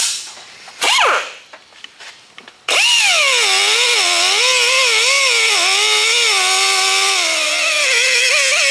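Pneumatic air chisel working at the rivets that hold the brake parts to a truck's spindle: a short burst about a second in, then running continuously from about three seconds in, its pitch wavering up and down as it bears on the rivet.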